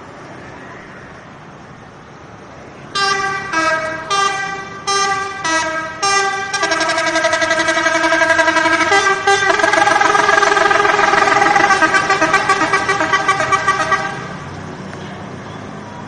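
A bus's 'telolet' musical multi-tone air horn playing: about five short melodic blasts that step in pitch from about three seconds in, then one long, warbling multi-note tune that stops a couple of seconds before the end.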